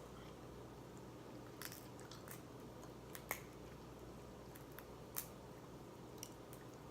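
Crab-leg shell being cracked and picked apart for the meat: a handful of small, sharp cracks and clicks spaced out, with faint wet eating sounds between.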